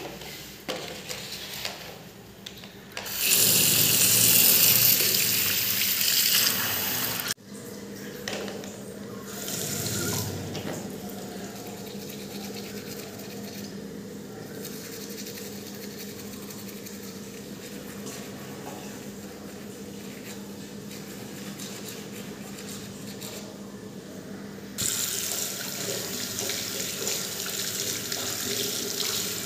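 Washbasin tap running loudly for a few seconds, then shut off abruptly. A quieter stretch follows while teeth are brushed. Near the end the tap is turned on again and runs steadily as the toothbrush is rinsed under it.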